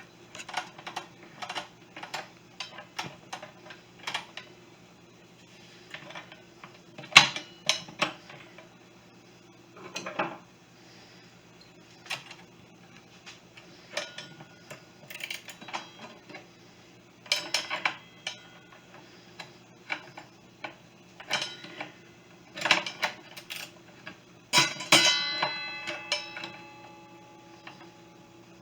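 Irregular metal clicks and clinks of a wrench, washer and bolt being handled and fitted on a miter saw's blade arbor, with one brief ringing metallic clank near the end.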